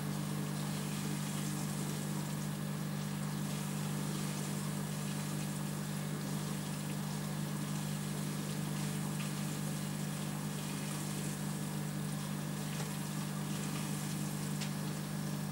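Aquarium pump running: a steady low hum with a constant wash of water noise and a few faint ticks.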